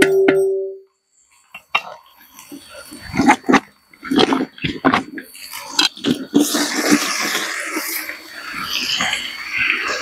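A metal ladle knocked against the rim of an aluminium cooking pot, ringing briefly at the start; then the ladle scraping and knocking in the pot as onions are stirred. About six seconds in, chopped tomatoes are tipped into the hot oil and a steady sizzling starts.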